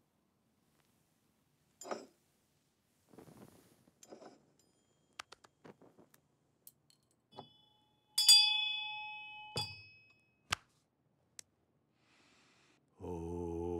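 Faint rustles and small clicks, then a brass puja hand bell is rung, ringing for about a second and a half before a knock cuts it off. Near the end a low, steady hummed chant begins.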